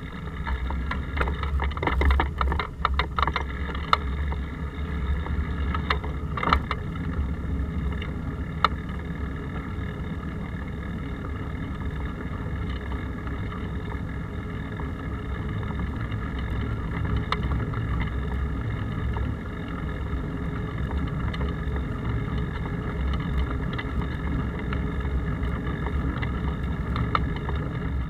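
Muffled rumble and rattle of a moving bicycle, picked up through the case of a handlebar-mounted action camera, with sharp knocks over bumps in the first few seconds.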